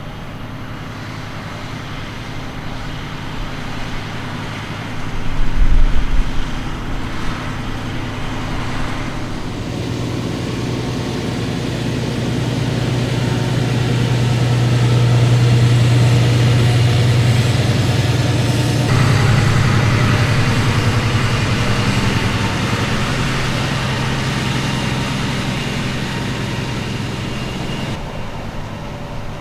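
Fendt 936 Vario tractor pulling a Samson PG II 31 tanker, its engine running steadily under load, growing louder to a peak about halfway through and then fading as it passes by. A brief low thump about six seconds in.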